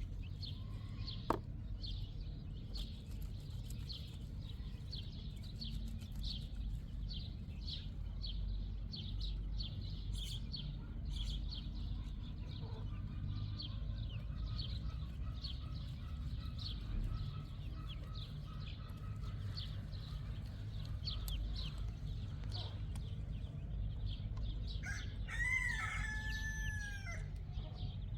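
Outdoor ambience with a steady low rumble and rapid, repeated high chirps. Near the end comes one long animal call, about two seconds long, that rises, holds and falls.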